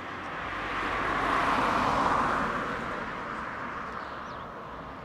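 A road vehicle passing by: an even rushing noise that swells to a peak about two seconds in and then fades away.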